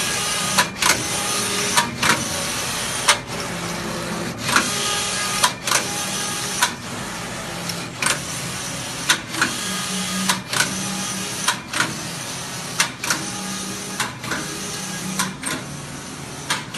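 JP-712 collar knitting machine running: a steady mechanical whirr with a sharp clack about once a second, as the knitting carriage reverses at each end of its stroke.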